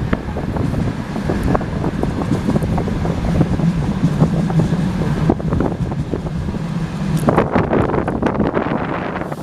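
Passenger train carriage running along the line, heard at an open window: wheel and rail noise with scattered knocks, and rushing wind on the microphone. A low hum comes in for a few seconds in the middle.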